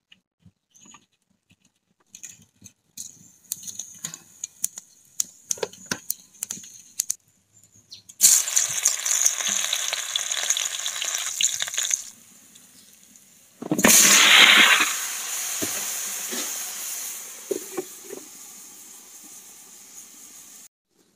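Hot oil in a black iron kadai spitting with scattered pops, then bursting into loud sizzling about eight seconds in as garlic and spices go in. About fourteen seconds in a heavier load, chopped bottle gourd, lands in the pan with a thump and sets off a louder sizzle that dies down slowly.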